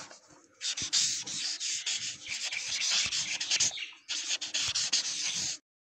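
Pen scratching across paper in quick strokes, a handwriting sound effect, with a short break near four seconds in.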